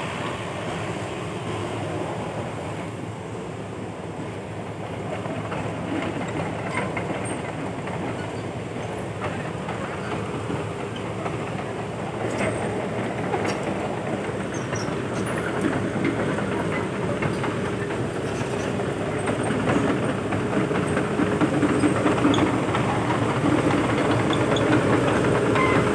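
Heavy diesel machinery running steadily with a mechanical clatter, growing louder over the last several seconds.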